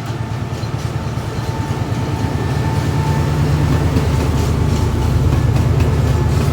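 CRRC-built diesel-electric freight locomotive (Thai QSY class) running with a steady low engine rumble and a thin constant whine, growing louder as it approaches.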